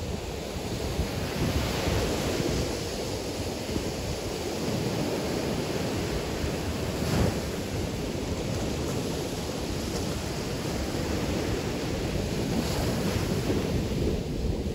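Surf from small waves breaking and washing up onto the sand, a steady wash that swells and eases, with wind rumbling on the microphone.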